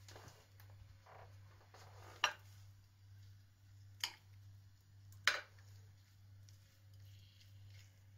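A metal spoon knocking against a frying pan three times, sharp single clicks a second or two apart, as raw bacon pieces are pushed around the pan, over a faint steady low hum.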